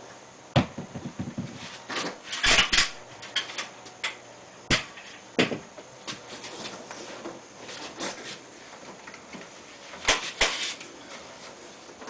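Scattered knocks, clicks and clanks of hand tools and metal fittings being handled, irregular, with a cluster of louder knocks about two and a half seconds in and again about ten seconds in.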